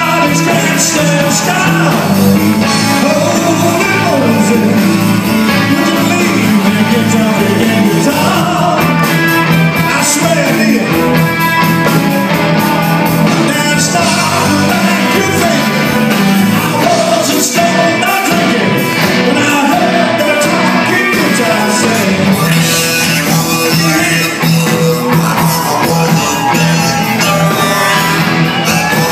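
Live Southern rock band playing: electric guitars, bass and drums with a lead singer, loud and steady throughout.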